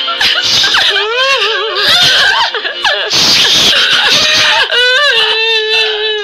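Several people laughing and shrieking with wavering, warbling voices, then about two-thirds in one voice slides up into a long, steady held note.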